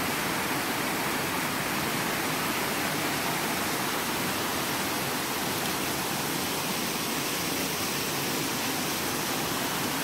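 Steady rush of a creek's small waterfall and cascades running over rock ledges.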